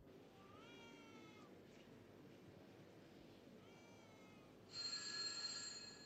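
A desk telephone rings with a steady electronic tone for about a second near the end. Before it come two short rising electronic warbles, one early and one around the middle.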